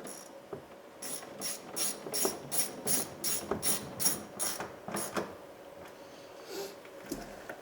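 Hand ratchet clicking in quick back-and-forth strokes, about three a second, as it tightens a door panel screw into plastic; a couple of slower, softer strokes follow near the end.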